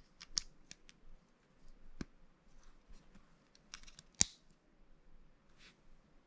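Small plastic Lego pieces being handled and pressed together: scattered light clicks and brief rustles, with a sharp snap about two seconds in and the loudest one about four seconds in.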